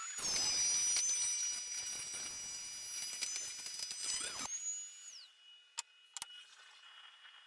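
Jointer running, with a board fed across its spinning cutterhead for about four seconds: a loud cutting noise over the machine's high whine, which dips slightly in pitch under the load. The cut ends, the whine slides down and stops, and a few light knocks follow.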